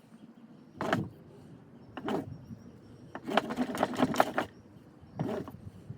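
Friction rolling of a jute-and-wood-ash fire roll under a board, making rough back-and-forth rubbing strokes that heat it toward an ember. There is a single stroke about a second in and another at two seconds, a fast run of strokes from about three to four and a half seconds, and a short one near the end.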